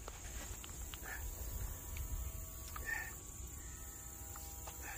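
Faint outdoor background: insects buzzing in a thin, steady high pitch over a low rumble, with a couple of faint brief sounds.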